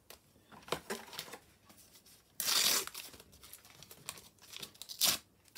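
Panini sticker packet being torn open: a loud rip a little under halfway through, with crinkling of the wrapper before and after and a short sharp crackle near the end.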